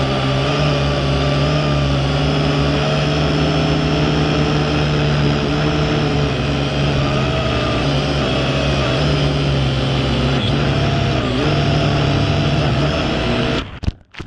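Quadcopter's electric motors and propellers whining steadily, with a slight wavering of pitch. Near the end the motors cut out abruptly and there is a sharp knock as the drone comes down on the ground.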